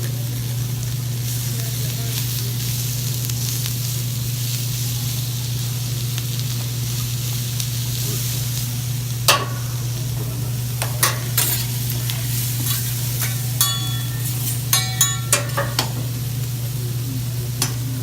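Food sizzling as it fries, with a steady low hum underneath. From about nine seconds in, a run of sharp metallic clinks rings out, like metal utensils striking a pan or plate.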